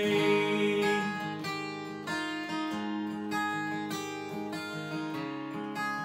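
Steel-string acoustic guitar strumming chords in a steady rhythm, an instrumental passage with no singing.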